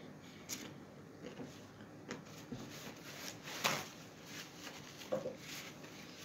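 Close-up chewing and mouth sounds: soft wet smacks and small clicks while eating, with one sharper click about three and a half seconds in.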